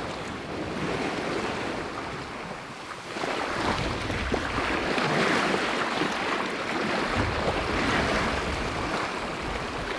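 Sea water rushing and splashing along a sailing yacht's hull under way, with wind buffeting the microphone; the rush swells about three and a half seconds in and stays louder.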